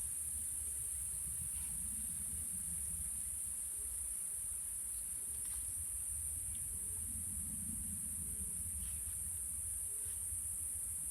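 Insects calling in a steady, unbroken high-pitched chorus, over a low rumble.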